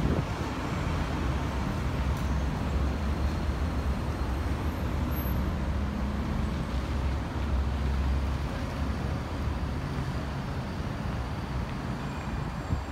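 Steady road traffic noise from a busy city street, a continuous low rumble of passing cars that swells twice, about a third of the way in and again past the middle.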